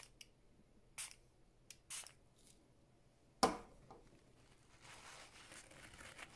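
A few light clicks and taps of a small hand tool at a plastic watch case, then a sharper knock about three and a half seconds in, followed by the soft rustle of a paper towel being handled near the end.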